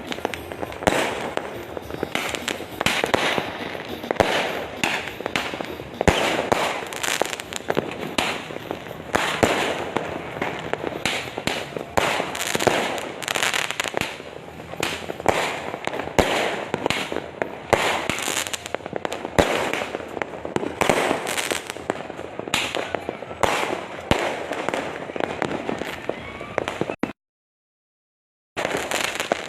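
Fireworks and firecrackers going off without pause, many overlapping bangs and crackles. The sound cuts out completely for about a second and a half near the end.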